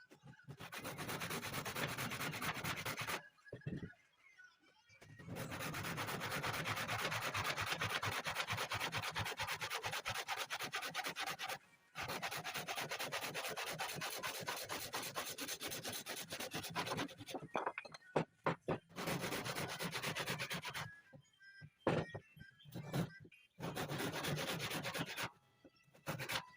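Wood being sanded in long, continuous runs, broken by short pauses at about three seconds and near the middle, and by a longer break with a few scattered knocks between about seventeen and twenty-one seconds.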